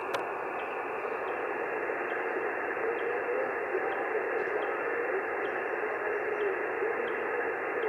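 HF amateur radio transceiver receiving on single sideband: a steady hiss of band noise, cut off above the voice passband, with a very weak station's voice faintly wavering under the noise.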